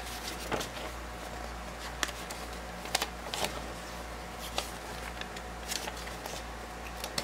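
Paper pages of a model kit's instruction manual being handled and turned by hand: scattered short rustles and light taps over a steady low hum.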